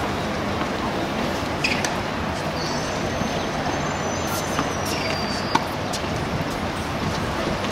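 Tennis ball struck by rackets during a practice rally: a few sharp pops, the loudest about two-thirds of the way through, over steady outdoor background noise.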